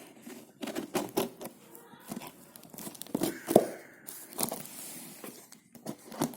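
Cardboard shipping box being opened: packing tape and cardboard tearing and crinkling in irregular snaps and rasps, the loudest snap about three and a half seconds in.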